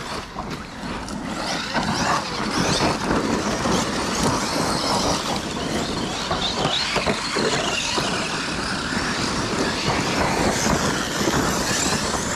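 Large-scale electric RC cars racing on a dirt track: the whine of their motors rising and falling as they accelerate and brake, with tyres churning over dirt and gravel.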